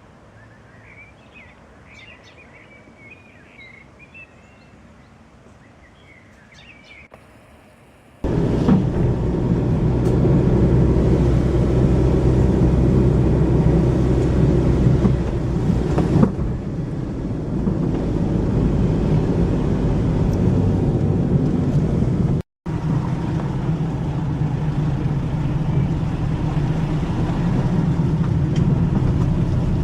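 Small birds chirping against quiet outdoor air, then, after an abrupt cut, a vehicle engine running steadily and loudly at a low pitch, with a brief dropout about two-thirds of the way through.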